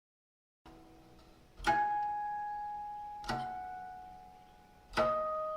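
Guqin playing slow closing harmonics: three single plucked notes, each ringing clear and fading slowly.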